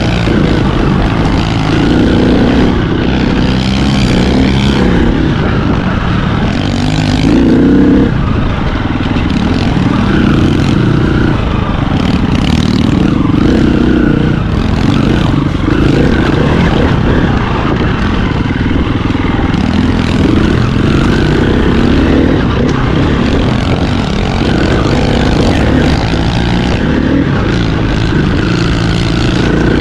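Dirt bike engine running on a trail ride, its throttle opening and closing every second or two, heard close up from a helmet camera with broad rushing noise over it.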